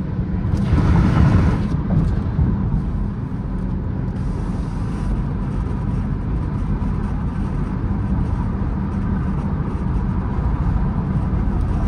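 Engine and road noise of a Dodge Durango R/T's 5.7-litre Hemi V8, heard from inside the cabin while driving on the highway: a steady low rumble that grows louder for a moment about a second in.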